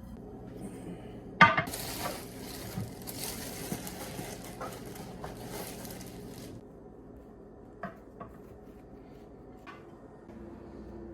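Dishes being washed in a sink: a sharp clank of crockery about a second and a half in, then a steady hiss for about five seconds, then a few light clinks of dishes.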